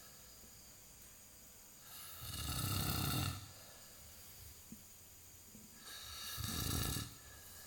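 A sleeper snoring loudly: two long snores about four seconds apart, each lasting a little over a second.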